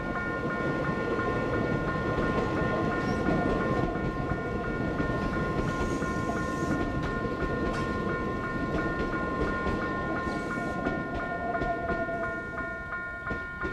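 An Autotrol level-crossing bell rings with quick, evenly spaced strikes and a steady metallic tone. Under it is the noise of a commuter train passing over the crossing, which fades near the end.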